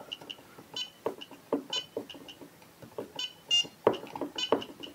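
ISDT C4 EVO battery charger giving short high beeps, one for each press of its menu buttons as the charge settings are scrolled, about eight to ten in all. Between the beeps there are sharp clicks and knocks from the buttons and the handling, the loudest a single knock near the end.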